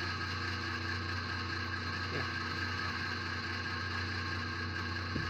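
Steady hum with several fixed tones, like a machine running. There are no clear knocks or other events.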